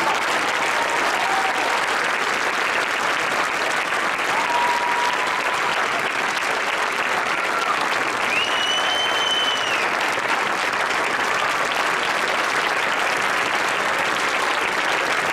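Audience applauding steadily, with a few high calls from the crowd on top, one held for over a second about eight seconds in.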